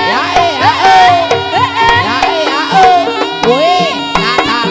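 Live jaranan gamelan music: a wailing lead melody that swoops and bends in pitch in short phrases, over steady held gong-like tones and a running pattern of kendang hand-drum strokes.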